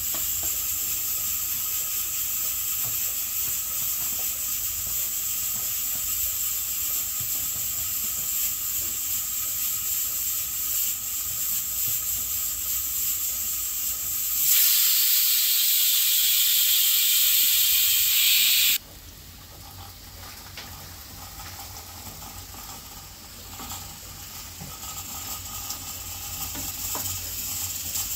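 Onions frying in oil in a nonstick pan on a gas stove, a steady hiss and sizzle. About halfway through, a much louder hiss runs for about four seconds and cuts off suddenly. After that the sizzle is quieter, with a few faint clicks near the end.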